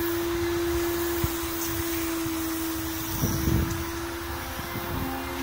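A Fortador steam-cleaning machine running with a steady hum and hiss. A brief low knocking or handling noise comes about three seconds in.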